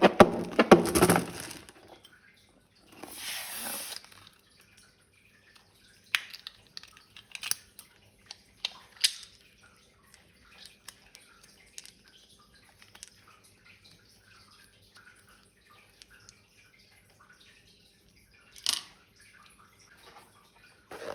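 Slime being squeezed and worked out of a balloon: soft wet, sticky clicks and drips. There is a short hissing rush about three seconds in and one sharper snap near the end.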